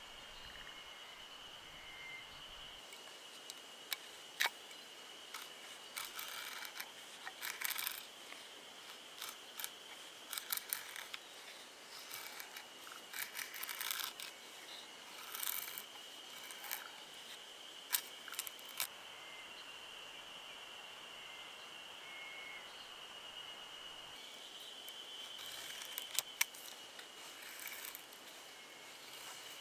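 Knife blade shaving thin curls off a split stick of dry wood to make a feather stick: a run of short, sharp scraping strokes, a pause of several seconds, then a few more strokes near the end. A steady high insect drone runs underneath.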